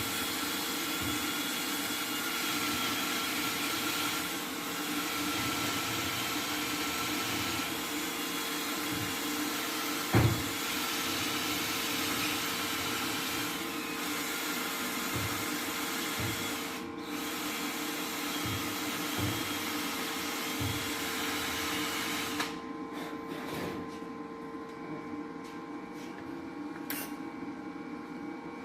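Handheld power tool running with a steady whir, cleaning the cylinder head's metal before welding, with one sharp knock about ten seconds in. The tool stops a little over twenty seconds in, leaving a low shop hum and a few light clicks.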